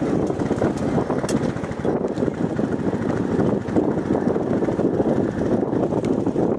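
Royal Enfield Bullet 350's single-cylinder engine running steadily while the motorcycle is ridden.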